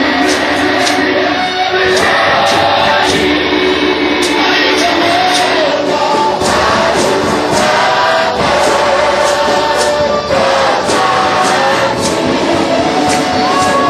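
Live gospel worship music: singers over a band with guitar and a steady beat of drums and cymbals.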